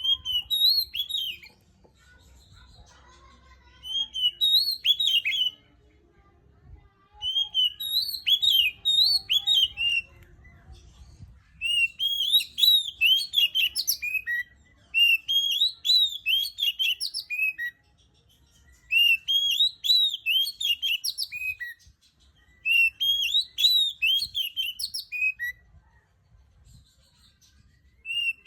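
Oriental magpie-robin (kacer) singing: about eight phrases of rapid, sweeping whistled notes, each phrase two to three seconds long, with short pauses between them.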